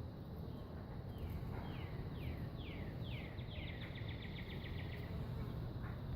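A songbird singing one phrase: a few down-slurred whistles, each a little longer than the last, that run into a fast trill and stop near the end. A steady low rumble lies underneath.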